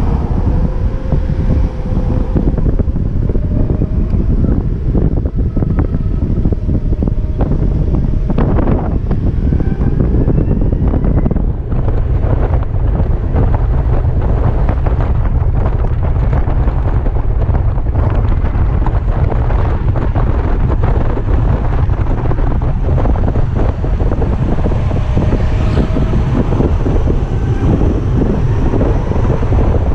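Wind buffeting the microphone and road and traffic noise while riding a BMW C-Evolution electric maxi-scooter, with no engine note. Thin whines rise in pitch a few times as the scooter speeds up.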